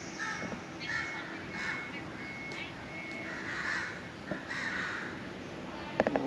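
A bird giving a series of short, harsh, crow-like calls, repeated roughly every half second to second.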